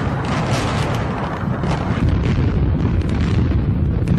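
A concrete high-rise collapsing: a continuous heavy rumble shot through with many sharp cracks and bangs.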